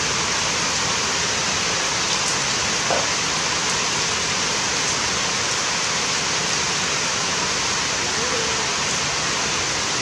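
Steady, even rushing hiss of falling water.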